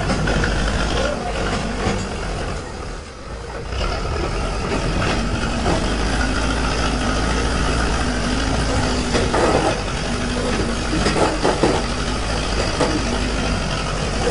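Backhoe loader's diesel engine running steadily while the front loader bucket works into dirt and rock, dipping briefly about three seconds in, with irregular extra noise in the second half.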